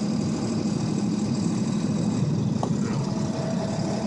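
2002 Ford F-250 pickup's engine and drivetrain running steadily as the truck pushes through deep fresh snow.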